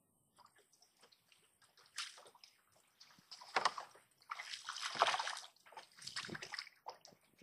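Water lapping and sloshing against a small boat's hull in soft, irregular splashes, starting about two seconds in and loudest about five seconds in.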